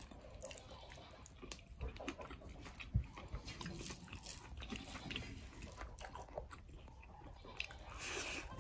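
Quiet eating by hand: fingers mixing rice and pork curry on a metal plate with faint scattered clicks and a soft knock about three seconds in, then a bite and chewing near the end.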